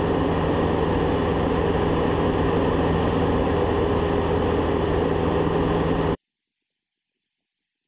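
Diamond DA40 cockpit noise: the single piston engine and propeller droning steadily, with a low, even hum underneath. About six seconds in the sound cuts off suddenly to silence.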